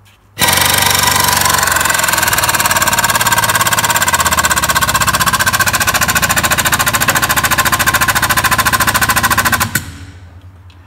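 Air-operated jacking beam on a vehicle ramp running under load, lifting a car's rear wheels clear of the runways: a loud, steady, fast pulsing noise that starts abruptly and cuts off near the end with a short fade.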